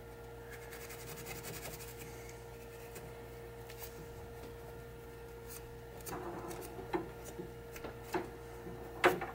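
Green scouring pad scrubbing the contacts of a pinball machine's Jones plug, a quick scratchy rasping from about half a second to two seconds in; this cleans the plug so it makes good contact. Then come a few light clicks of small parts being handled, the sharpest about nine seconds in, over a faint steady hum.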